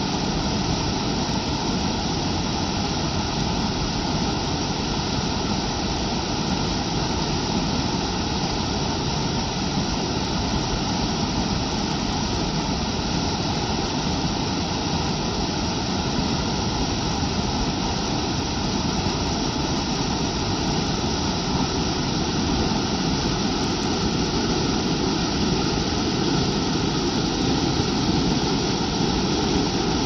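Small waterfall cascading over rocks: a loud, steady rush of white water.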